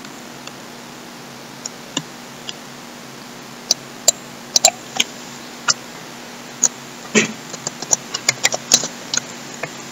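Computer keyboard keystrokes: scattered single clicks, a few at first and coming quicker near the end, over a faint steady hum.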